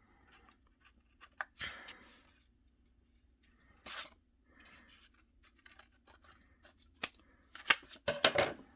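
Scissors snipping paper and paper being handled, in short scattered bursts with a cluster of louder snips and rustles near the end.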